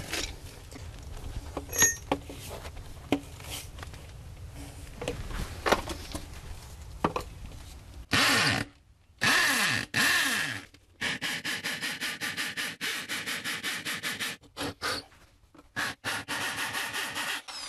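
Scraping and light knocks for the first half, then a corded electric hammer drill boring into a concrete slab in short bursts from about eight seconds in, its motor winding up and down between bursts. Near the end the drill pulses rapidly on and off, about five times a second.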